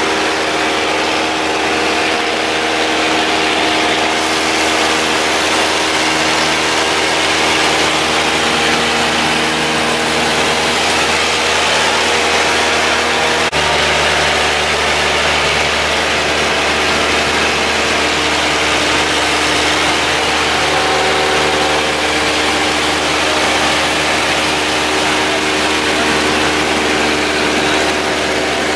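The engine and propeller of a light high-wing plane in flight, a steady drone heard inside the cabin. The drone changes suddenly about halfway through, becoming stronger in its lowest part.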